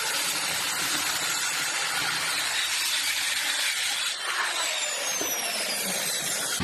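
A woodworking power tool running on wood, a steady loud hiss, with a high whine that slides down in pitch from about four seconds in.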